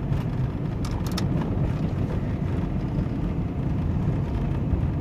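Van driving along a wet paved road, heard from inside the cab: a steady engine and tyre rumble, with a few short clicks about a second in.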